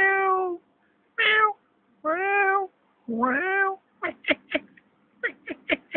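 Loud meowing: four drawn-out meows, then two quick runs of short mews in the second half.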